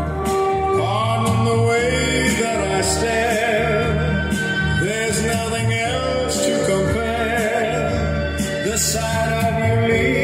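Pop song playing from a vinyl record on a Technics SL-3300 direct-drive turntable, heard through hi-fi loudspeakers in the room.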